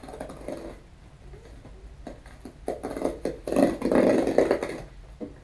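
A cardboard shipping box being opened by hand, with rustling, scraping and tearing of cardboard and packing tape. A louder rasping tear comes about three and a half seconds in and lasts about a second.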